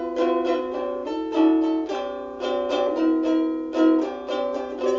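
Bruko ukulele strummed alone, a chord struck about every half second with the chords changing, in an instrumental passage without singing.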